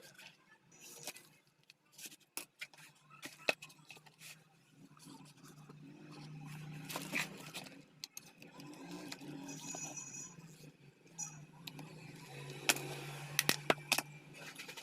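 Scattered clicks, taps and scraping of parts and tools being handled during repair work on a power cutter, over a low hum that swells twice.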